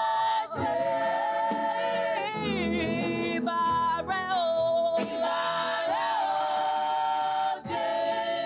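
Women's choir singing a gospel worship song in long held notes that bend and slide in pitch.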